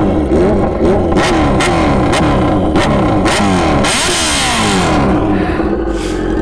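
Superbike engine revved repeatedly in neutral: a string of quick rising-and-falling blips, the biggest and highest about four seconds in, then settling back toward idle near the end.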